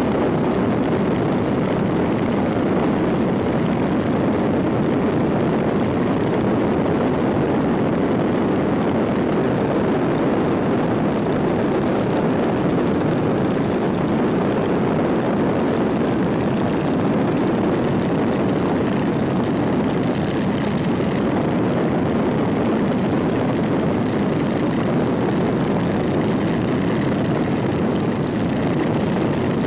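Boeing Stearman biplane's radial engine and propeller running steadily in flight, heard from the open cockpit.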